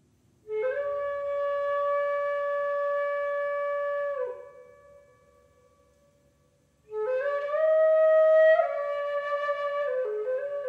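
Background music: a slow solo melody of long held notes. The first phrase ends with a short downward slide about four seconds in and fades, and a second phrase starts about seven seconds in, stepping up and then down.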